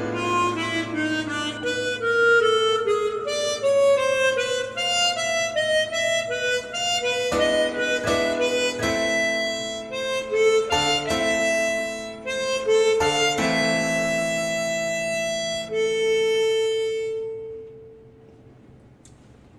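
Harmonica playing a slow, lyrical melody over accompanying chords, closing on a long held note that fades out near the end.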